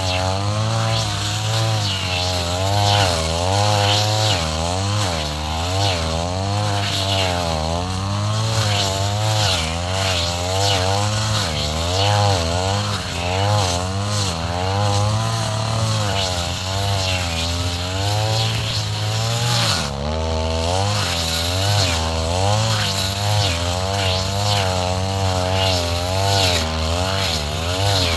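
Two-stroke brush cutter running hard while cutting through tall grass, its engine pitch dipping and recovering about once a second.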